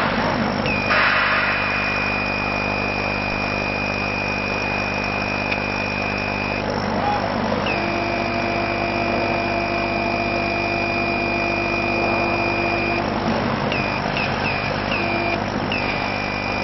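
Laser cutting machine working: its head-drive motors whine as the cutting head traverses, each run starting with a rising whine that then holds steady, over a steady hum from the machine's fans and air assist. Two long runs are followed by several short ones near the end.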